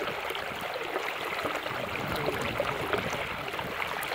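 Water trickling and dripping with many small, light splashes as a wet fishing net is handled over shallow floodwater.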